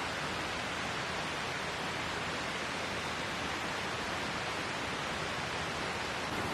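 Steady, even rush of water with no separate events.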